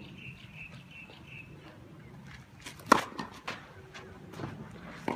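A bird calls a run of short repeated notes in the first second and a half. About three seconds in, a tennis racket strikes the ball on a serve with a sharp crack, followed by a few fainter knocks.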